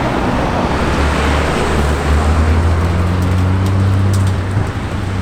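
Car engine running at low revs on the street, a steady low hum that rises a little about two seconds in, over traffic noise.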